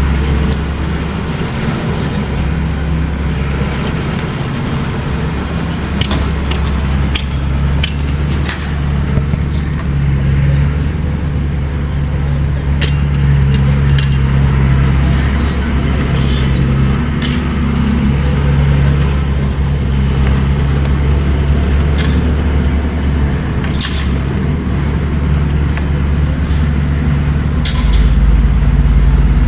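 Bulldozer's diesel engine running steadily, with scattered sharp clanks and clicks over it. A deeper low drone comes in near the end.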